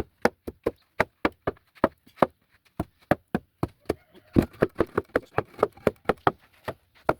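Rapid, irregular knocking, about three to four sharp strikes a second, with a busier flurry of blows about four seconds in.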